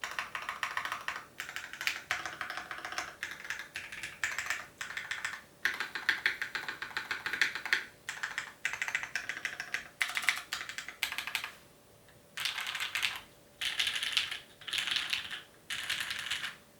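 Typing on a custom mechanical keyboard with lubed Cherry MX Red linear switches on an aluminium plate, under GMK keycaps: rapid runs of keystrokes broken by short pauses every second or two.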